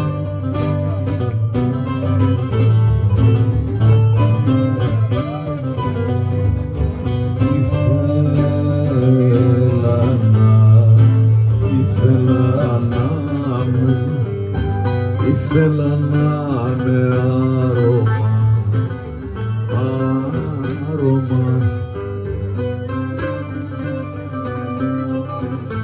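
Mandolin and two laouta (Greek long-necked lutes) playing an instrumental passage of a song, with a steady low accompaniment under a moving plucked melody.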